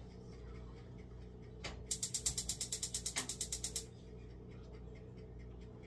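Gas range burner igniter clicking rapidly, about ten sharp clicks a second for some two seconds, starting a couple of seconds in, with a light knock just before.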